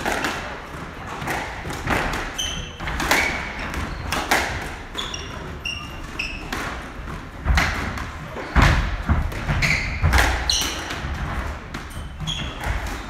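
Squash rally: the ball hitting rackets and the court walls in a quick irregular series, with players' shoes squeaking and thudding on the wooden court floor. Heavier thuds come in the second half.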